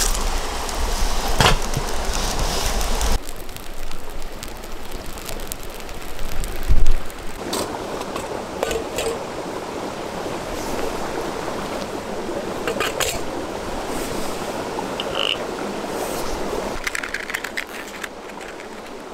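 Steady rushing of a river, with scattered snaps and crackles from a small twig fire and one louder knock about seven seconds in.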